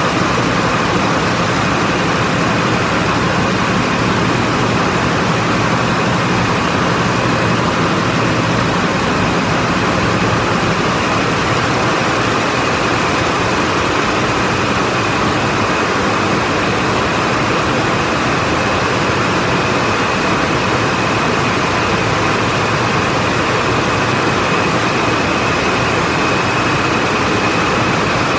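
Many SD8100 water jet looms weaving polyester at about 700 rpm, making a loud, steady mechanical noise with a steady high whine on top.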